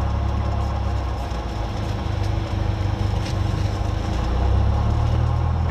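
Cessna 172's piston engine and propeller running at low taxi power, heard from inside the cabin as a steady low hum. It grows a little louder about four and a half seconds in.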